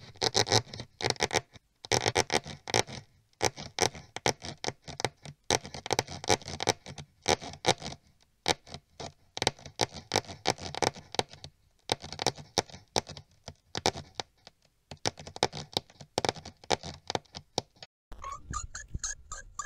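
Sound effect of mice scurrying: rapid light pattering and scratching of small claws on a wooden floor, in runs of a few seconds with short breaks. A few short, high squeaks come near the end.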